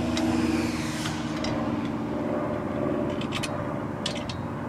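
An engine running steadily at an even pitch, with a few light metallic clicks as an Allen wrench tightens a screw in a steel stand leg.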